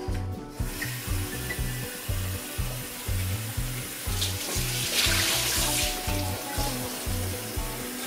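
Background music with a steady beat over a hiss of water running from a De'Longhi Dedica EC685 pump espresso machine into a mug. The hiss starts about half a second in and swells briefly about five seconds in.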